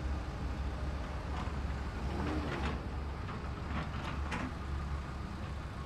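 Heavy construction machinery running with a steady low rumble, with scattered short metallic clanks and knocks.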